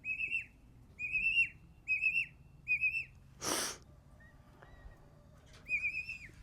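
Emu chicks peeping: short, high, whistled trills that come in little bursts about once a second, then pause and start again near the end. About midway there is one brief rush of noise.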